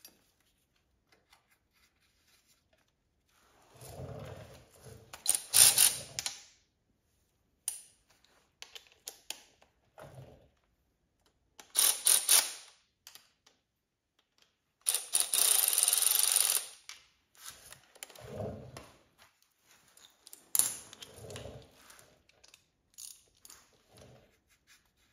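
Hand ratchet wrench clicking in four short runs, the longest about a second and a half, as a bolt on a timing-belt pulley is turned, with duller knocks of tools and parts being handled between.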